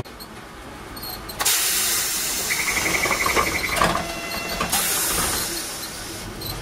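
Pneumatic door gear of a Hiroshima Electric Railway 570-type tram hissing loudly for about three seconds as the folding exit door closes, with a rapidly beeping buzzer partway through and a knock as the door shuts.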